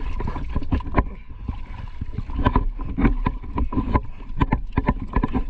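A scuba diver climbing a ladder out of the water: water splashing and dripping off him, with many irregular small splashes and knocks.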